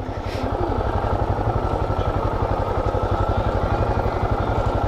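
Motorcycle engine running steadily with an even, rapid pulse, pitch holding level.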